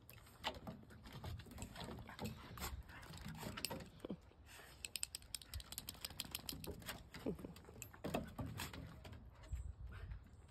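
Two dogs play-wrestling on a wooden deck: their claws click and scrabble on the boards in quick runs, with a few short, soft play growls.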